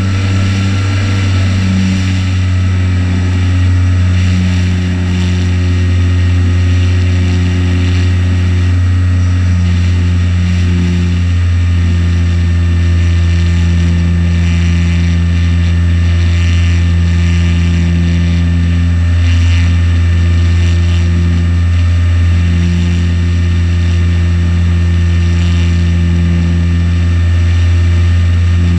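RocHobby Waco RC biplane's electric motor and propeller running in flight, heard close up from the top wing: a loud, steady low drone with a thin, steady high whine over it.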